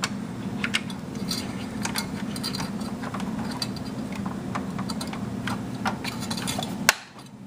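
Scattered small clicks and metallic taps of a heat sink retention clip being fitted and latched over a desktop CPU heat sink, over a steady low hum. A sharp click about seven seconds in, after which the hum drops away.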